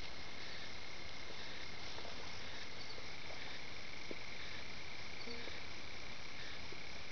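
A steady chorus of small calling animals: one continuous high-pitched note, with fainter short pulses below it about once a second, over a constant hiss.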